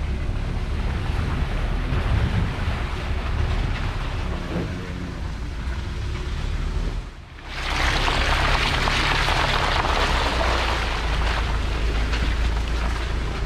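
Pickup truck driving slowly on a rough dirt track: a steady low engine rumble with wind rushing over the microphone. About seven seconds in it cuts to a louder, brighter rushing noise of the tyres rolling over dry leaves and dirt close beside the wheel, with the engine rumble still underneath.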